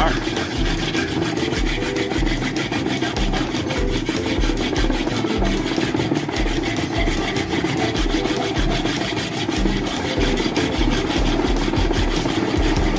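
Flat hand file rasping across the edge of a metal plate clamped in a bench vise, in steady repeated strokes about two a second.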